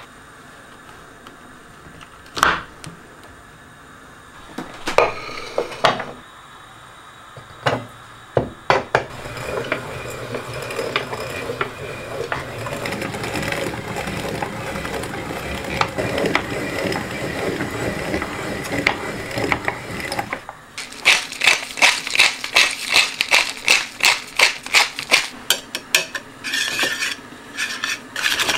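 A few knocks as a rotary cheese grater is set up, then its drum grating Parmesan with a steady grinding for about ten seconds. From about two-thirds of the way through, a metal whisk beats egg yolks and cheese in a ceramic plate, clicking against it about three times a second.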